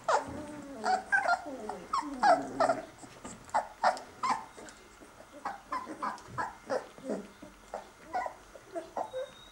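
Very young Basset Artésien Normand puppies whimpering and squeaking in many short, high calls that often slide down in pitch. The calls come thick and fast in the first half and grow sparser later.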